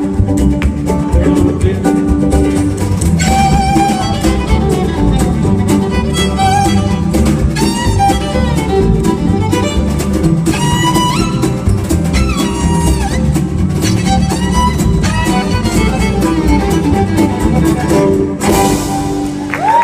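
Live acoustic string band playing an instrumental passage with no singing, led by fiddle over guitar and a steady low rhythm. The song breaks off about a second before the end.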